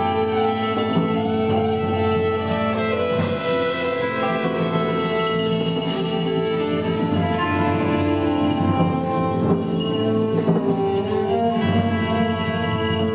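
Live ensemble music with many sustained, layered tones held steady, bowed strings such as cello among them.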